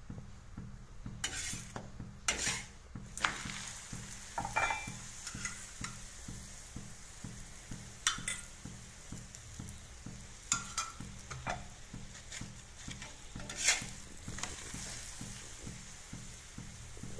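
Oiled stuffed radish paratha frying on a hot iron tawa with a steady sizzle. A utensil scrapes and knocks against the pan about six times as the paratha is pressed and turned, loudest near the end.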